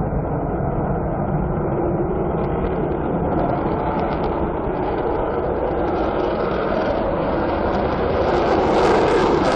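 Fighter jet's engine on the takeoff roll: a loud, steady rushing roar that grows louder and harsher near the end as the jet lifts off and passes.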